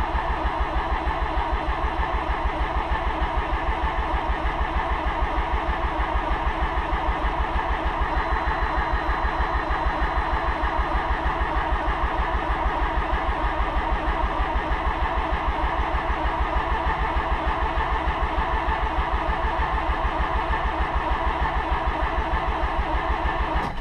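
Starter cranking the 1985 Mazda RX-7's 13B rotary engine with the throttle floored and the fuel injection disconnected, in an even, rapid rhythm for about twenty seconds without catching, stopping right at the end. This is the unflooding procedure, clearing excess fuel from an engine the owner believes is flooded in the cold.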